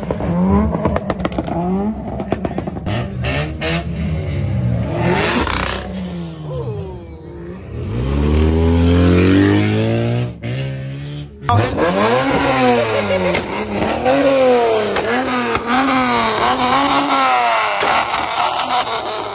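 Car engines revving and accelerating one after another, their pitch rising and falling, with one long rising pull in the middle. In the second half a single car's engine is blipped in quick repeated revs, just under one a second, heard close to its exhaust.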